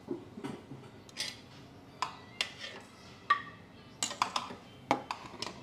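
A metal spoon clinking against a stainless steel bowl and a plate while salad is served, in a string of irregular sharp knocks and clinks, a few of them ringing briefly.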